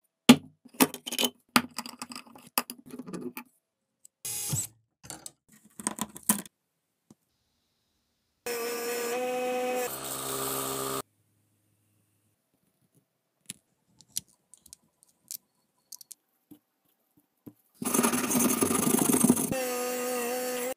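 Small metal parts of a Boston pencil sharpener clicking and clinking as they are handled and taken apart. About eight seconds in, a drill press runs for a couple of seconds while a spinning metal part is sanded. Near the end comes a second, rougher and noisier stretch of machine running.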